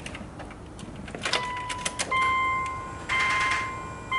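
A few light clicks, then a car's electronic warning chime dinging about once a second, each ding fading away, as the ignition is switched on.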